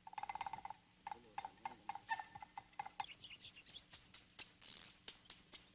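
Birds calling in short, repeated chirps, over scattered scrapes and knocks of hands digging in dry, sandy earth.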